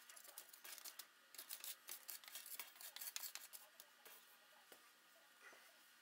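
Wooden spatula scraping and turning roasted potato pieces on a metal sheet pan: faint, quick scrapes and light clicks, busy for about four seconds and then thinning out.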